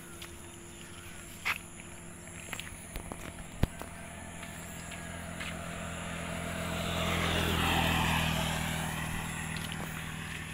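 A motor vehicle passes on the road. Its engine and tyre noise builds over several seconds, is loudest about eight seconds in, then fades. A single sharp click comes about three and a half seconds in.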